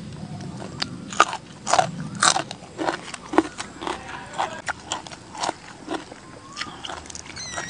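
Close-up eating sounds: raw prawn and fresh greens chewed with irregular sharp crunches and wet mouth clicks, the loudest about one to two and a half seconds in.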